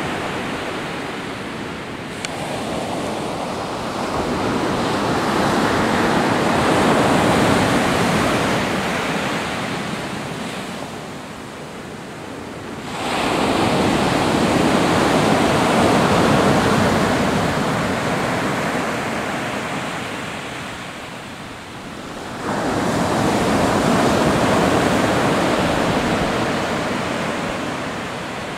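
Pacific Ocean surf: waves breaking and washing up the shore in long swelling surges, with a new wave crashing in sharply about halfway through and again about three-quarters of the way in.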